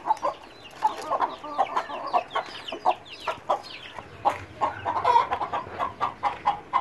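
Chickens clucking with chicks peeping: a steady stream of short clucks, with many thin, high, falling peeps over the top.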